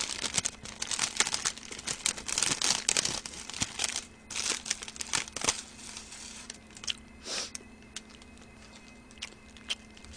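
White paper food sleeve crinkling and rustling as a churro is worked out of it, dense and busy for the first six seconds or so, then thinning to scattered crackles.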